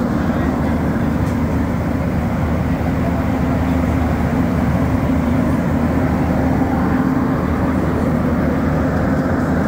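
Montreal Metro AZUR train running at steady speed, heard from inside the car: a loud, even rumble of its rubber tyres on the track, with a steady low hum from the drive.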